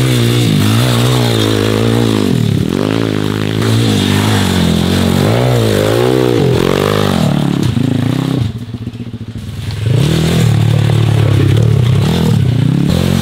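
MRF 140 RC pit bike's small single-cylinder four-stroke engine revving up and down as it is ridden over a dirt trail, the pitch rising and falling again and again. About eight and a half seconds in it drops quieter for a second or so before picking up again.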